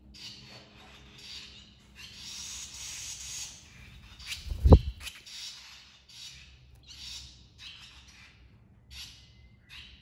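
Barn swallow nestlings chirping in short high-pitched bursts about once a second, busier for a second or so near the start. About halfway through, a single sharp thump is the loudest sound.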